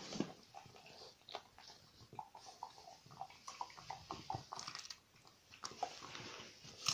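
French bulldog chewing and gnawing a dried fish-skin and apple chew treat: a faint, irregular run of small clicks, thickest in the middle.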